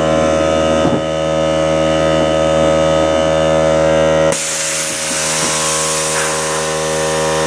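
Small portable air compressor running with a steady motor hum; about four seconds in, a sudden loud hiss of escaping air starts as the regulator blows off. The owner suspects the compressor went over its 100 psi limit because the pressure shut-off did not stop the motor.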